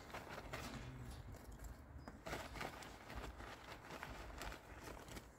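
Faint, irregular scuffs and crunches of garden work in loose soil and dry leaves, several a second, with no steady rhythm.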